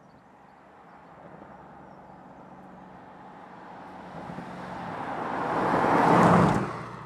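Mercedes-AMG C63 S with its 4.0-litre twin-turbo V8 approaching and passing close by. The engine note and tyre noise grow steadily louder to a peak about six seconds in, then fall away quickly as the car goes past.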